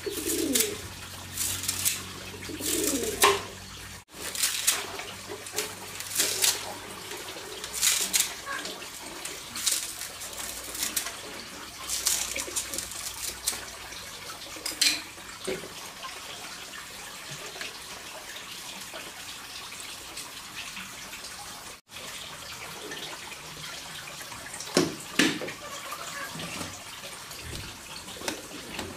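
Water splashing and sloshing, with a series of short knocks and clinks as things are handled in it.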